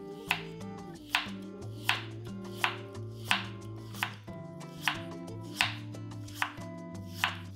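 Kitchen knife slicing a carrot into thin strips on a wooden cutting board: about ten sharp cuts, a little over one a second, each ending on the board. Soft background music plays underneath.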